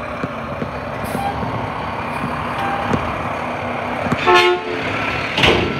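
Front-loader garbage truck's diesel engine running steadily, with a short horn toot about four seconds in. A brief noisy burst follows just after, and reversing beeps begin faintly near the end.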